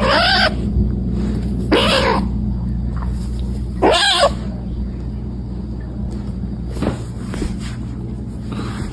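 A cat meowing: three loud calls about two seconds apart, each rising and then falling in pitch, and a fainter call near the end. A steady low hum runs underneath.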